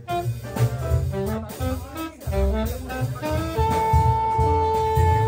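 Live jazz: a saxophone plays a quick run of short melody notes over an upright bass, then holds one long note from about two-thirds of the way through.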